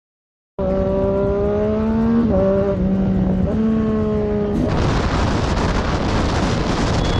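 After a half-second gap, a sportbike engine runs steadily at cruising speed from the rider's seat, its pitch dipping briefly twice. About four and a half seconds in this gives way to a loud, even rush of wind over a helmet camera's microphone on another motorcycle at motorway speed.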